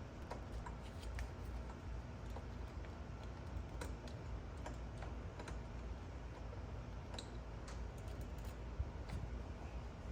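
Faint, irregular clicks of a hand tool on a bolt as a turbo inlet bolt is worked loose, over a low steady hum.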